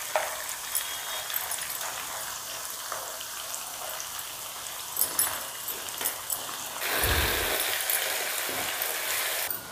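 Hot oil sizzling in a kadai as cashew-almond paste is scraped in from a steel mixer jar, with a few light taps. The sizzle gets louder about seven seconds in, as the paste is stirred into the frying onions with a wooden spatula.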